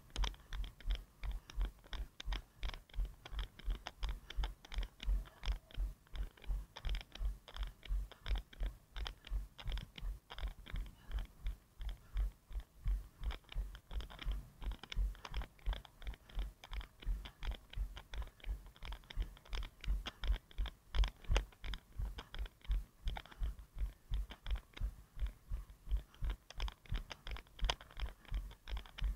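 A runner's footfalls, about three strides a second, picked up through a head-mounted action camera that knocks with each stride.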